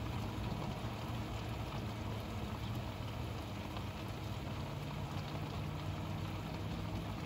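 Rain falling steadily in a thunderstorm, an even hiss of drops, with a low steady hum running underneath; a second low tone joins the hum about halfway through.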